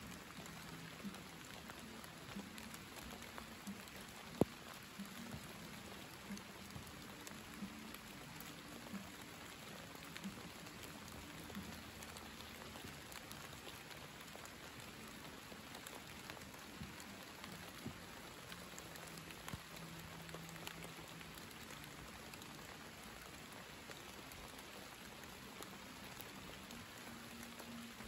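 Summer rain falling: a steady patter of drops with many scattered single drop ticks, one sharper drop about four seconds in.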